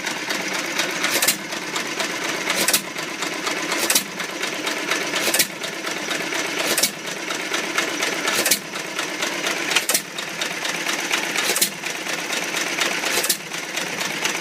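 Freshly rebuilt antique stationary creamery engine running on its first run, firing with a sharp bang about every second and a half and clattering steadily between firings.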